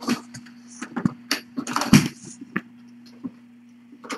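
Kittens clambering and scuffling on a carpeted cat tree: a string of short scratches and light knocks, the loudest about two seconds in, over a steady low hum.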